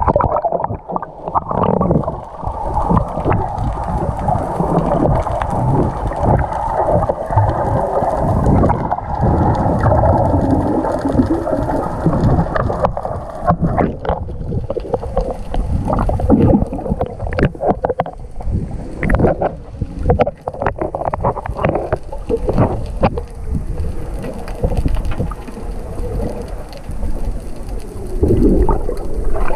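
Muffled underwater sound picked up by a GoPro action camera in its waterproof housing: a low rush of moving water with scattered knocks and clicks as the camera is moved through the water.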